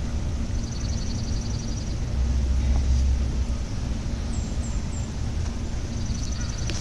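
Low, steady rumble of distant traffic, swelling for about a second in the middle. A high, rapid trill comes twice above it, early on and again near the end.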